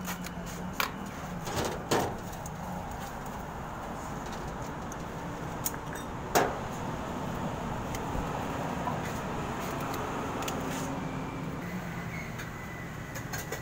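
Metal scoop scraping and knocking against the metal canister while es puter is scooped out, giving a few sharp clicks, the loudest about six seconds in, over a steady background hum.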